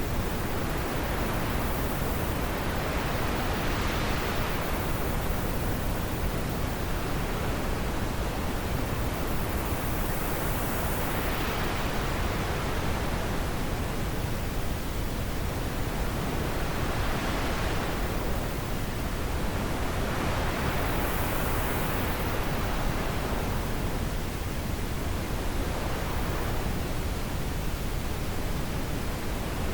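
Wind blowing as a steady rush of noise, with gusts that swell and fade every few seconds.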